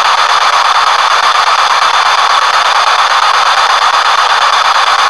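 P-SB7 spirit box radio sweeping rapidly through stations, giving a loud, steady hiss of static with a fast choppy flutter, played through an external speaker.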